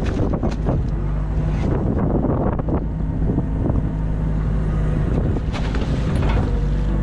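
Hydraulic excavator's diesel engine working hard, heard from the cab as the machine swings and the boom moves, with a few clunks. About five and a half seconds in, water splashes as the bucket plunges into the muddy stream.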